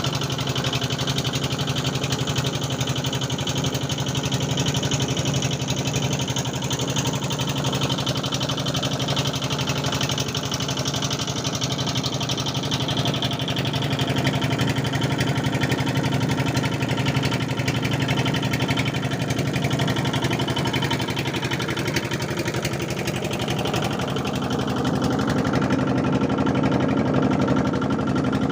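A motor running steadily at an even pitch, a continuous mechanical drone.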